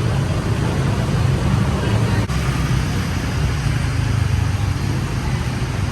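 Steady low rumble of road traffic on a busy street.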